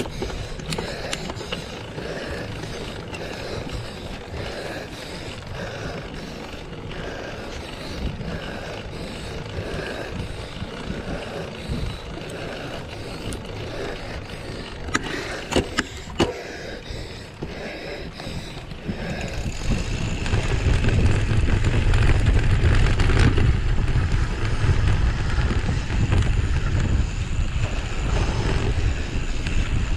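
Mountain bike being ridden over rough ground, with tyres and frame rattling and wind buffeting the microphone. There are a couple of sharp knocks about halfway, and the wind rumble gets much louder from about two-thirds of the way in.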